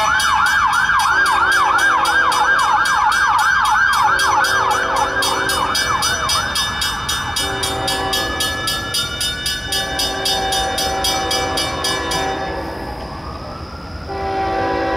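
A CSX coal train's locomotive horn sounds repeated blasts for a grade crossing, over the rapid ringing of the crossing bells, which stop about twelve seconds in. An emergency vehicle's siren yelps quickly at first, then changes to a slow rising-and-falling wail.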